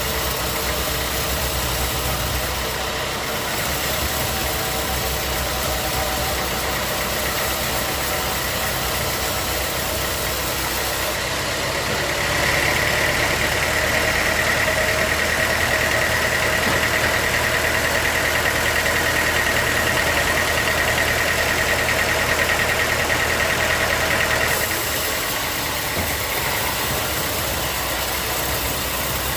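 Sawmill machinery running steadily. About twelve seconds in it grows louder with a steady high whine for roughly twelve seconds, then settles back to its earlier even running.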